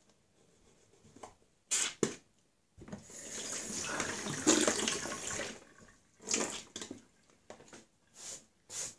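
Bathroom sink tap running for about three seconds, a steady hiss of water, as the mouth is rinsed after tooth brushing. Two short sharp splashes come before it and several short bursts after.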